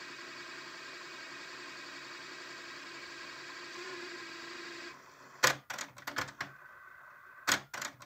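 Panasonic RX-DT680 cassette deck fast-winding the tape backwards in pause search, a steady whir for about five seconds that cuts off suddenly. Then a run of loud mechanical clicks as the tape transport stops and shifts its mechanism, the sign that the search has found the gap between tracks.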